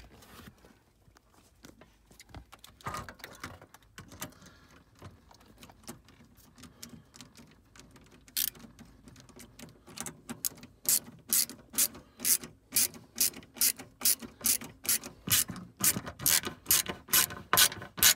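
Socket ratchet wrench clicking as it turns 7 mm bolts into a plastic lower dash panel. Faint scattered clicks at first, then from about ten seconds in a steady run of sharp ratchet clicks, about two or three a second.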